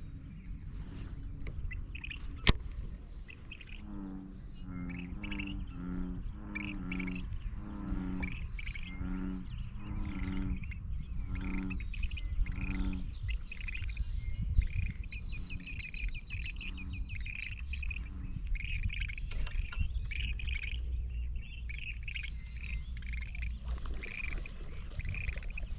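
Wild birds chirping and calling over and over at a lakeshore, with a lower call repeated about a dozen times in the first half and a steady low rumble of wind or water underneath. A single sharp click sounds about two and a half seconds in.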